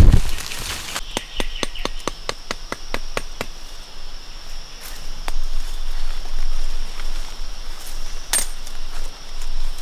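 A quick run of about a dozen sharp taps, roughly five a second, starts about a second in, with a few single knocks later and a louder one near the end. A steady high insect drone runs underneath.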